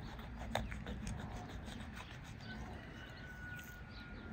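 Knife blade cutting slits into a raw bull leg, with small wet clicks of the blade and hands working the meat, the sharpest about half a second in. A thin steady whistling tone sounds over the last second and a half.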